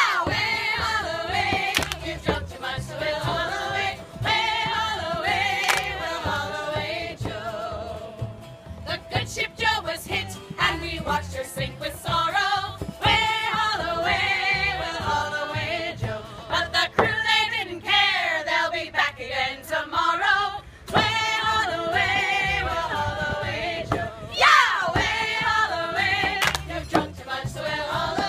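A group of women singing together in harmony, with a frame drum keeping the beat. A high swooping vocal whoop cuts through twice, at the start and near the end.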